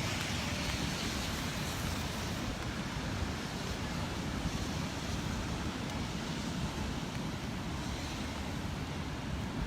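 Wind buffeting the microphone with a low rumble, over a steady hiss of rain and surf on a stormy beach.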